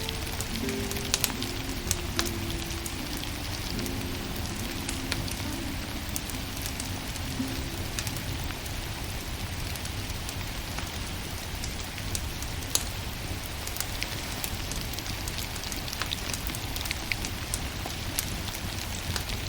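Burning firewood crackling, with frequent sharp pops over a steady hiss. Soft music notes fade out over the first several seconds.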